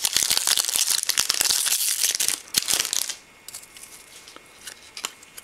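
A foil trading-card pack being torn open and crinkled, a dense crackle lasting about three seconds. After that it drops to a few faint clicks as the cards are handled.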